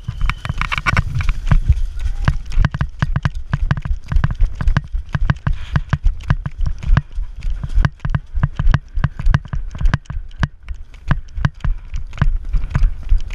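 Running footsteps picked up by a camera worn on the runner, heard as quick, uneven heavy thuds a few times a second, with the jolting of gear and the mount on each stride.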